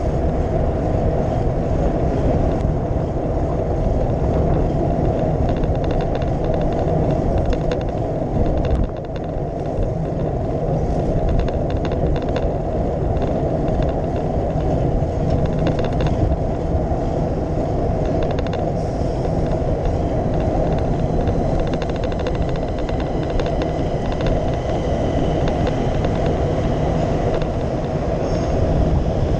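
Steady rumbling wind and road noise on a bicycle handlebar camera's microphone while riding, with faint ticks and rattles now and then.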